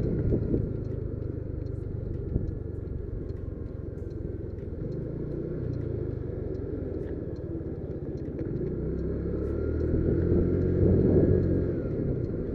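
Motor scooter engine running while riding along a street, a low rumble with road and wind noise. The engine hum grows louder in the second half.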